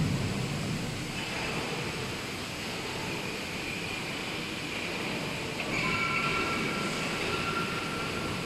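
Steady machine running noise in a machine-tool workshop, with thin, high whining tones joining about six seconds in.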